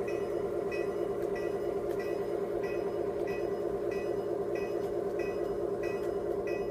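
Simulated diesel locomotive sound from an MRC Symphony 77 model railroad sound system: a steady engine drone with a bell ringing evenly about every two-thirds of a second.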